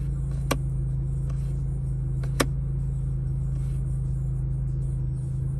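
Maserati MC20's 3.0-litre twin-turbo V6 idling steadily, heard from inside the cabin. Two sharp clicks, about half a second in and about two and a half seconds in, come from the drive-mode selector dial being turned.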